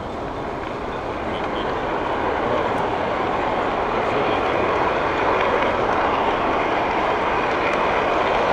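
Steady running rumble of a model train, heard from a camera riding on one of its cars, growing gradually louder.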